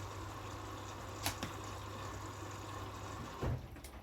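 Washing machines running mid-cycle: a steady hum with water sounds, a short click about a second in and a knock near the end.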